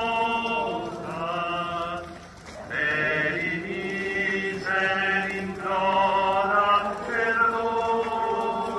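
Religious singing in slow, long held notes, with short breaks between phrases: a hymn sung during a Eucharistic procession.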